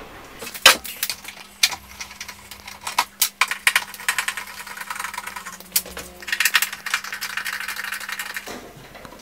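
Screwdriver working the side-panel screws at the top of a boiler's metal casing: many quick clicks and short rattles, with a steady low hum underneath that stops abruptly near the end.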